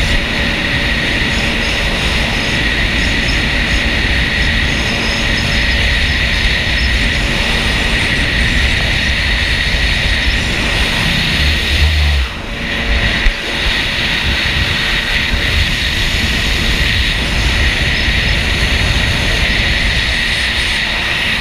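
Jet ski engine running steadily with a constant whine. It briefly drops away about twelve seconds in, then picks up again.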